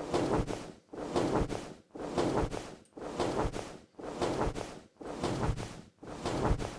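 Designed sound effect of large dragon wings flapping, played back on a loop: about one wing flap a second, each a rustling whoosh with a low thump as it starts.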